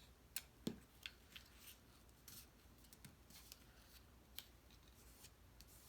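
Faint, scattered clicks and brief rustles of cardstock pieces being handled and pressed together, the sharpest clicks in the first second.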